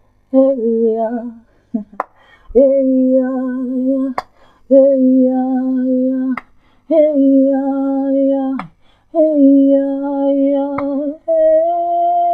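A woman singing long, held wordless notes, about five steady tones with short breaks between them, with a few short clicks in the gaps.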